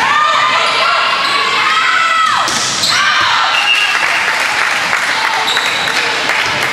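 Volleyball game in a gymnasium: players and spectators shouting and calling out, with a ball thump about two and a half seconds in.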